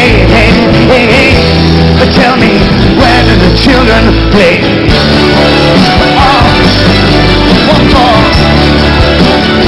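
Live band music: a strummed acoustic guitar over held bass notes, in a long passage without sung lyrics.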